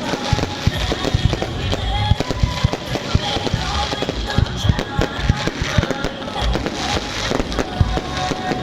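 Fireworks bursting in a dense, irregular barrage of bangs, with music playing underneath.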